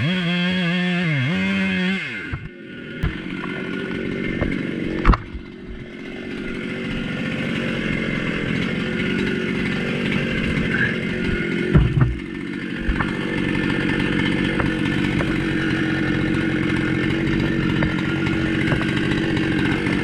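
Husqvarna chainsaw on an Alaskan chainsaw mill running while cutting through a log. Its pitch wavers for the first couple of seconds and then dips. It builds back into a steady drone under load. There are a couple of sharp knocks, about five and twelve seconds in.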